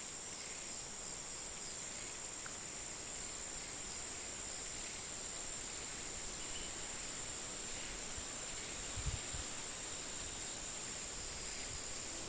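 Rain-forest insect drone: a steady high-pitched buzz over a soft hiss of forest ambience, with a faint low thump about nine seconds in.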